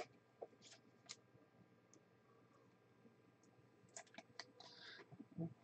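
Faint scattered clicks and a short scraping rustle of a trading card being handled and put into a rigid plastic card holder, with a soft thump near the end.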